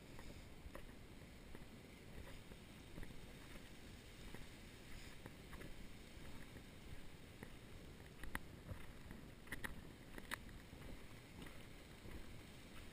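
Faint low rumble of wind and movement on a body-worn camera while walking, with scattered light clicks and crunches of footsteps on a sandy, gravelly trail, a few sharper ones about two-thirds of the way through.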